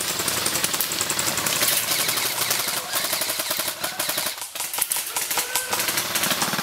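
Airsoft guns firing full-auto bursts: a rapid, dense run of sharp clicks that thins out briefly past the middle.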